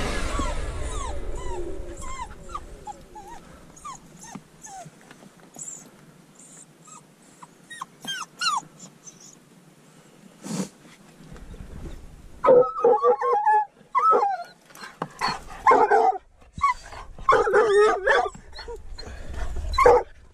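Hunting dogs at a mink den under rocks: high whining squeaks at first, then from about twelve seconds in loud, excited barking right by the microphone, again and again, as the dogs mark the mink hidden in the den. A battery blower winds down at the very start.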